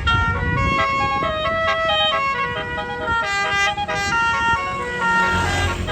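Tour bus's basuri telolet horn playing a quick tune, one pitched note after another, over the low rumble of the bus engine.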